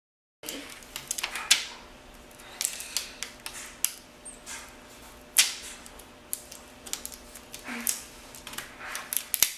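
Irregular sharp clicks and taps of small plastic and metal laptop parts being handled, starting abruptly about half a second in, as the old laptop screen panel is worked loose and taken out.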